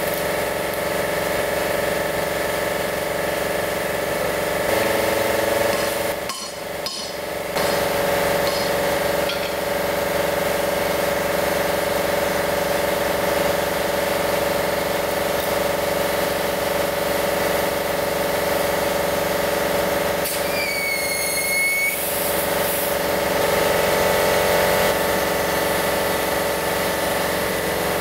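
Steady machine hum, most likely an air compressor running, while compressed air from the hose fills a narrow tyre on a steel wheel to seat its beads. The sound briefly drops out about six seconds in, and a short high whistle comes about twenty seconds in.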